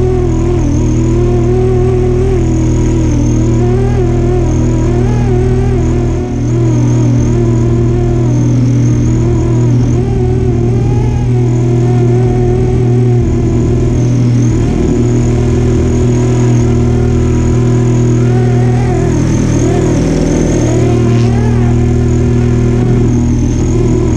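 FlyWing AS350 Squirrel radio-controlled helicopter in flight, heard close up from a camera on its tail boom: a steady motor and rotor hum with a high whine, its pitch wavering slightly as the throttle and load change, with a brief dip about six seconds in.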